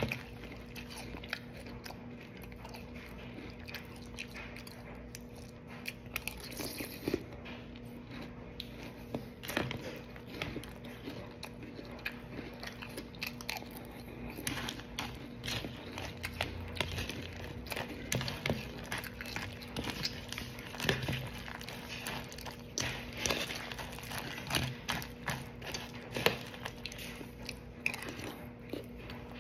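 Close-up chewing of crunchy Cap'n Crunch cereal, many short crisp crunches and crackles one after another, over a faint steady hum.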